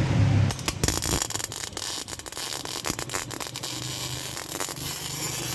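Electric welding on a car's chassis rail: a crackling, sputtering hiss from the arc that starts about half a second in, over a low hum.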